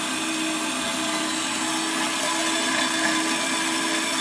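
Hafco BS-5V portable bandsaw running steadily, its blade cutting through 10 mm mild steel plate under light hand pressure: a steady motor hum with the hiss of the blade in the metal.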